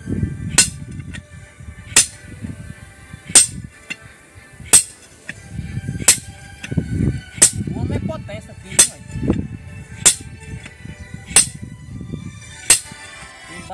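A sledgehammer striking the head of a hand-held steel drill bar on rock: a sharp metallic clink about every second and a half, about ten blows. The bar is being driven by hand to bore a hole for a blasting charge.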